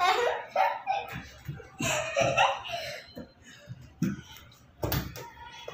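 A young girl laughing and giggling in play, with two sharp thumps a little under a second apart near the end.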